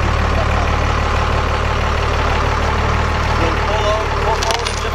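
Diesel pickup truck engine idling steadily with an even low rumble. A brief click about four and a half seconds in.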